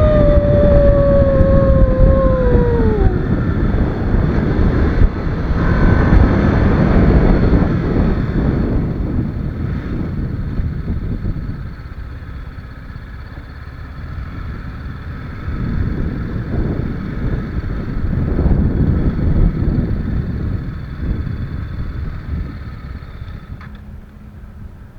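TVS Apache RR 310's single-cylinder engine and heavy wind rush on the microphone during a highway ride. The wind noise fades about ten seconds in, swells again mid-way and fades toward the end as the speed changes. A clear tone sliding down in pitch sounds over the first three seconds.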